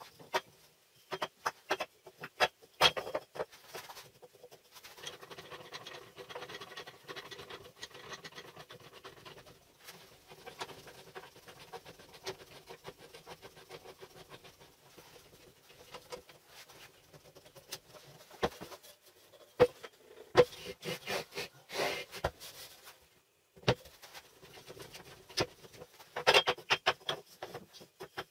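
Wooden blocks being set down, knocked together and lifted off the steel bars of a homemade bar clamp: sharp wooden clacks and knocks in clusters, with quieter stretches of scraping and rubbing in between.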